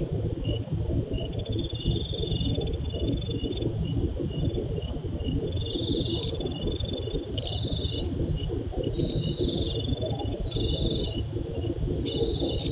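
Crickets or other insects chirping: short high chirps repeating steadily, with longer trills coming and going. Under them runs a louder, steady, rough low noise.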